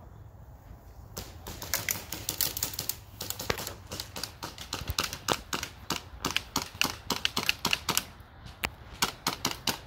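Airsoft guns firing: an irregular clatter of sharp snapping shots that starts about a second in, with a brief lull near the end.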